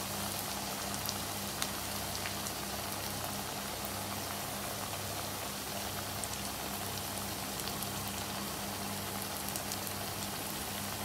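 Potato smiley (mashed potato with breadcrumbs) deep-frying in hot oil in an aluminium kadai: a steady sizzle with scattered small pops, while it is left to fry until brownish. A steady low hum runs underneath.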